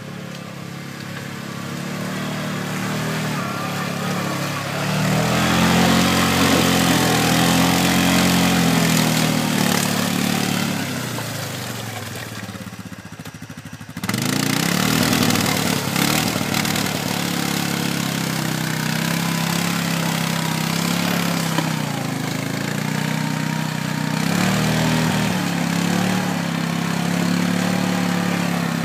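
ATV (quad bike) engine revving as it churns through deep mud with its wheels spinning, the pitch rising and falling with the throttle. The engine swells and then fades in the first half, then cuts suddenly about halfway through to closer, steady revving.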